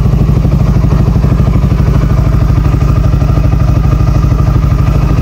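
Motorcycle engine idling steadily with an even firing pulse, started with the clutch lever held in because its neutral diode has been removed.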